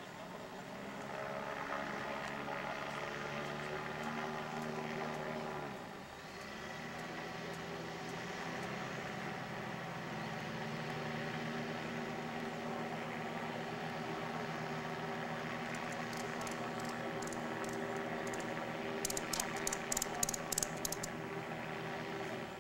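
Rotax 912 four-cylinder aircraft engines and their propellers droning steadily overhead. The engine tone dips about six seconds in, then comes back up and holds. A quick run of sharp clicks comes near the end.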